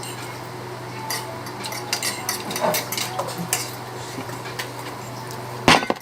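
Spoons and forks clinking and scraping against plates, many small clicks, with a louder knock near the end. A steady low hum runs underneath.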